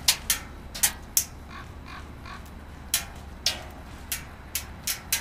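Airsoft gunfire: about ten sharp single snaps at irregular intervals, with a few fainter ones in between.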